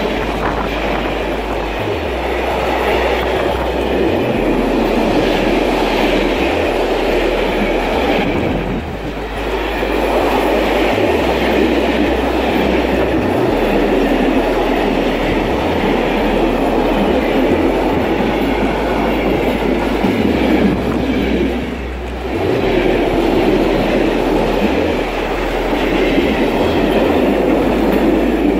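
Freight train of tank wagons rolling past close by: steady wheel-on-rail rumble with clickety-clack, dipping briefly twice.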